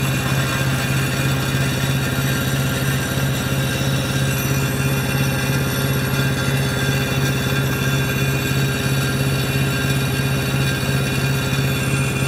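Small diesel engine of a wood chipper running at a steady speed, with an even hum that does not change.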